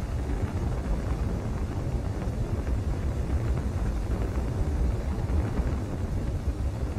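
Steady low rumble with a fainter hiss above it, a sound effect for a spacecraft streaking through the Martian atmosphere during entry.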